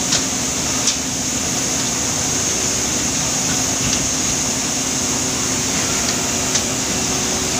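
Palm oil mill threshing station machinery, its conveyors and threshing drum running with a steady loud hum and hiss, with a few sharp knocks.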